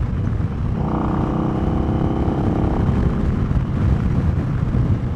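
2020 Indian Scout's liquid-cooled V-twin running at a steady cruising speed, with heavy wind buffeting on the rider's microphone. A steady engine tone stands out for a couple of seconds, starting about a second in, before the wind rumble covers it again.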